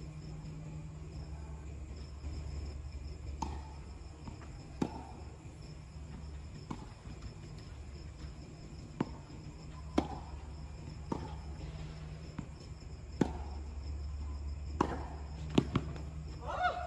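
Tennis rally: a series of sharp pops from rackets striking the ball and the ball bouncing on the court, roughly a second or so apart, with two in quick succession near the end.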